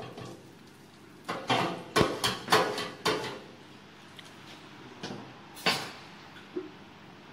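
Metal künefe pan and utensils clanking on the stove as the pan is handled and turned over the low flame: a quick run of knocks in the first three seconds, then another sharp clank about five and a half seconds in.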